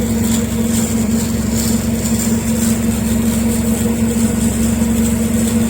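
Jaespa ASH9 three-phase bandsaw running with its blade turning: a steady machine hum with a strong low tone that holds even throughout.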